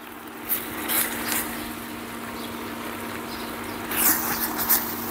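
Seafood risotto sizzling and bubbling in a hot pan, with louder bursts of sizzle about half a second in and again near the end, over a steady low hum.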